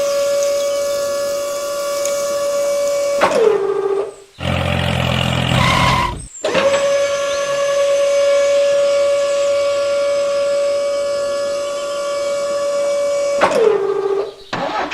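A long, steady whistle held for about three seconds that slides down in pitch as it dies away, then a short low engine-like rumble, then the whistle again for about seven seconds, sliding down at the end.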